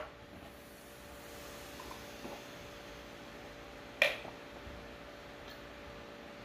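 One sharp glass clink about four seconds in, from a glass with a shot glass dropped inside it being tipped up to drink a Jäger bomb; otherwise faint steady room noise.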